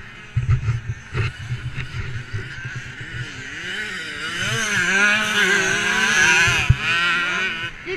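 KTM 85 two-stroke motocross bike engine being ridden hard, its revs rising and falling again and again as the rider works the throttle. It gets louder over the second half.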